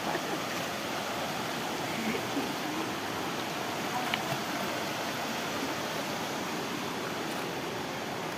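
Shallow river rushing over rocks, a steady, even wash of water.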